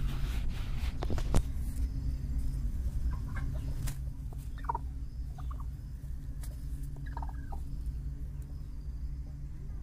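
Hen sitting on a straw nest ready to lay, giving short clucks in three little runs, about three, five and seven seconds in, over a steady low hum.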